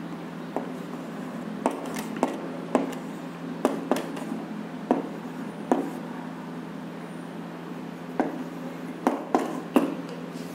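Chalk tapping and scraping on a blackboard during writing: about a dozen short, sharp clicks at irregular intervals over a steady low hum.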